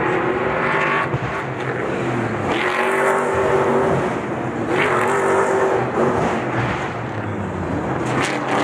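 Stadium Super Trucks' V8 race engines running hard on track, their engine note rising and falling several times as the trucks accelerate, lift off and pass.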